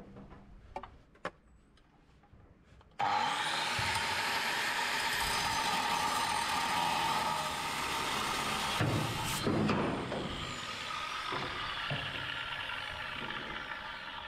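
AEG angle grinder starting up suddenly about three seconds in, after a few faint knocks, then running with a steady whine while its disc grinds against the deck. It eases slightly in the second half.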